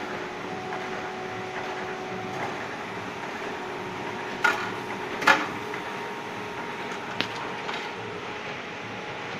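Steady machinery hum with a few faint held tones, broken by three sharp metallic knocks, the loudest about five seconds in.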